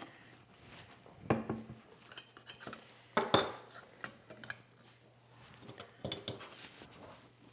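Metal clinks and knocks from a cast-iron #5 bench plane being handled and its blade adjuster and frog parts worked, with two louder knocks about a second and three seconds in.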